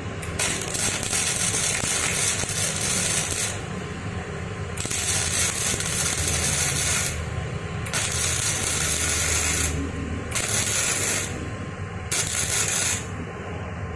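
Flux-core MIG welding with no shielding gas on a Daiden MIGi 130: the arc crackles and hisses in five bursts, the first about three seconds long and the last two about a second each. The current, set at 70, seems too high for the thin 1.7 mm steel.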